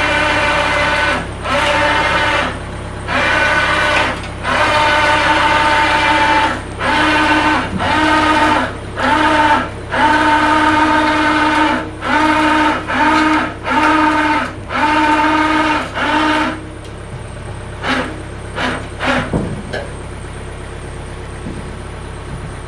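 Electric chain hoist motor whining in about a dozen short start-stop bursts, the same pitch each time, as it inches an engine down on its chain; after the bursts stop, a steady low hum and a few clicks remain.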